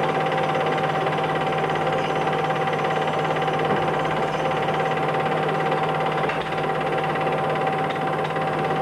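Film projector running steadily: a constant mechanical whirr and rattle with a fixed hum tone through it.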